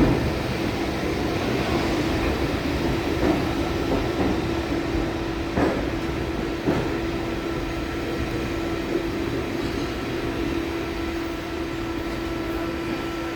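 A train rolling slowly into a station, a steady whine running under the rumble of the wheels, with a few sharp knocks as wheels cross rail joints.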